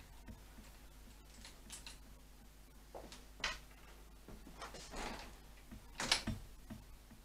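Hands working a motorcycle throttle twist-grip and its cable at the handlebar: a few short scrapes and clicks, the loudest about six seconds in. The throttle cable is binding.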